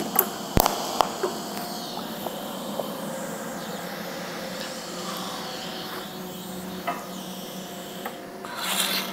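TIG welder in DC spot-weld mode: a few sharp cracks of the high-frequency start and short tack arc within the first second, then a steady hiss with a faint hum, the shielding-gas post-flow and the air-cooled machine's fan. A short louder rustle comes near the end.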